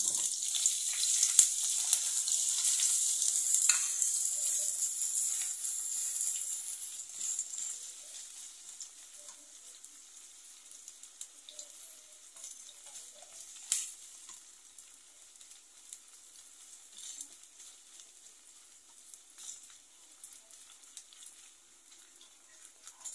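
Sliced sausages sizzling in hot oil in a non-stick frying pan. The sizzle is loud for the first six or seven seconds, then dies down to a quieter steady frying, with the clicks and scrapes of a spatula stirring the pieces.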